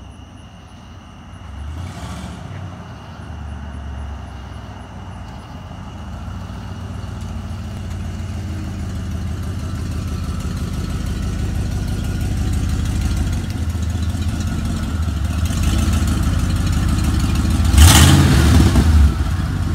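Engine of an OBS-body Ford F-series pickup running as the truck drives up. Its low rumble grows steadily louder as it nears, then surges loudly for about a second near the end.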